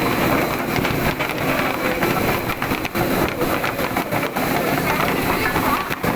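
Carrot washing machine running, giving a steady, dense churning noise.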